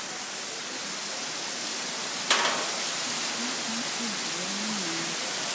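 Steady rain and wind noise, with one sharp knock a little over two seconds in.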